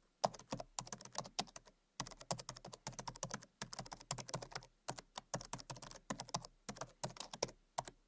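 Typing on a keyboard: rapid, irregular key clicks, with short pauses about 2 and 5 seconds in.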